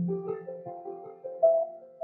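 Background music: a piano melody of single sustained notes, with a low note struck at the start.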